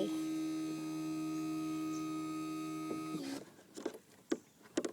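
Electric trolling motor running with a steady hum. It cuts off suddenly about three seconds in, followed by a few light knocks.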